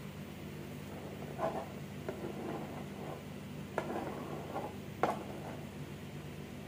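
A spatula scraping and spreading cream frosting onto the side of a layered cake, in a few short scrapes about a second and a half in, around two seconds, and around four and five seconds in. A steady low hum sits underneath.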